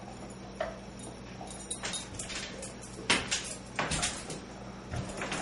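Metal drywall stilts knocking and clunking on a hardwood floor as the wearer steps and shifts his weight on them: a handful of separate knocks, the loudest about three and four seconds in, over a steady low hum.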